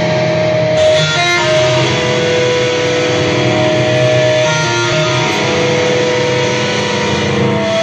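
Live deathcore band playing: distorted electric guitars and bass holding long, ringing notes, loud and continuous.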